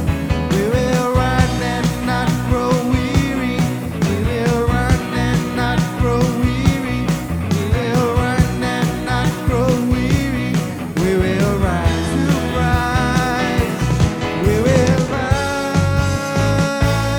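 Church worship music from a band with drums keeping a steady beat under a gliding melody line.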